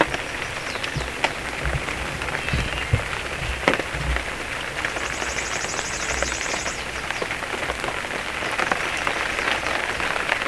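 Steady rain falling, with many small drop ticks pattering on nearby surfaces. A high, rapid, evenly pulsed trill sounds for about two seconds around the middle.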